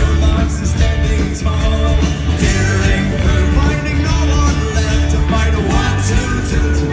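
Live folk-rock band playing loudly, with electric and acoustic guitars and fiddles over a strong steady bass.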